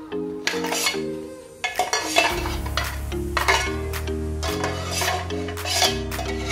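Repeated metal clanking and clinking: a 320 GB Western Digital PC hard disk knocking about loose inside its metal portable enclosure, metal striking metal through a gap in the mounting. Background music with a steady bass line runs under it.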